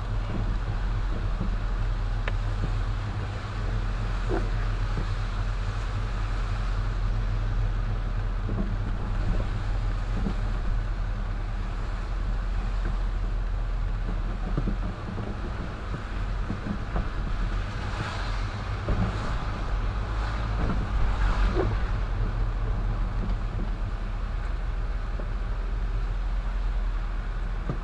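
A car driving on a wet road, heard from inside the cabin: a steady low drone from the engine and road, with tyres hissing on the wet pavement, which gets louder about 18 to 22 seconds in.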